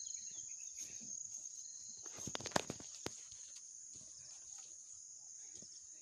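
Footsteps on wet, muddy ground, with a cluster of sharper knocks about two and a half seconds in, over a steady high-pitched insect hiss.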